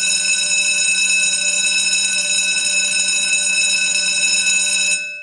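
A bell ringing without pause, steady and loud, then stopping about five seconds in and dying away.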